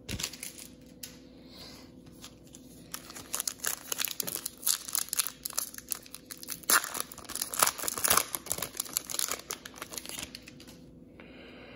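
Foil wrapper of a Prizm football trading-card pack being torn open and crinkled by hand: a run of crackling rustles that starts sparse, grows dense a few seconds in, is loudest past the middle, and thins out near the end.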